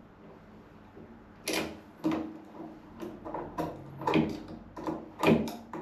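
Irregular small clicks and light knocks of screws being handled and started into a shower mixer valve body as the new cartridge is fastened, beginning about a second and a half in.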